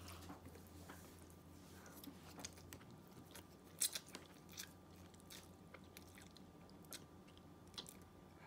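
Quiet slurping and chewing of instant ramen noodles, with scattered small mouth clicks and smacks, the loudest nearly four seconds in.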